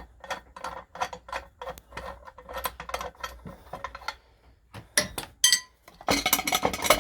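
Ratchet wrench clicking in a quick, even run while a mounting bolt on an engine is undone. A couple of ringing metallic clinks follow, then a louder clatter of metal parts near the end.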